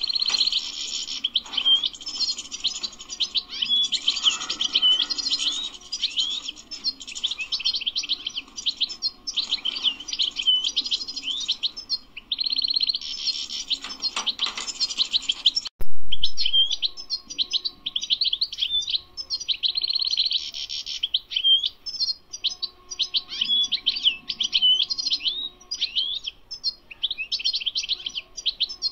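European goldfinch singing: a long, rapid song of high chirps, trills and quick sliding notes with only short pauses. A sharp click and a brief break fall about halfway through.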